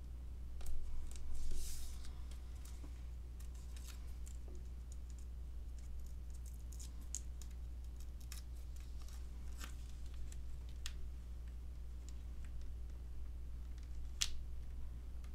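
Paper crafting handling sounds: small cut cardstock pieces rustling and being pressed onto a card, with a brief rustle about a second in, scattered light ticks and taps, and a sharper tick near the end. A low steady hum runs underneath.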